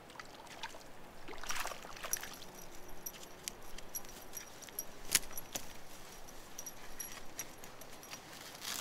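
Fishing reel being cranked, with quick repeated metallic ticking and scattered sharp clicks as a small trout is reeled in; one sharper click about halfway through.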